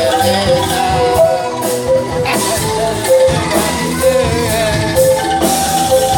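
Angklung ensemble, shaken bamboo rattles, playing a melody together with a band, with drums keeping the beat.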